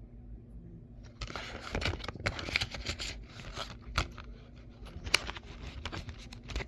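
A plastic Blu-ray case and its discs being handled: irregular rustling and scraping, with sharp clicks about four and five seconds in.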